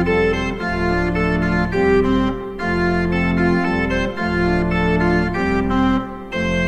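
Organ music: slow, held chords over a low bass line, the chords changing about once a second, with a brief break in the playing near the end.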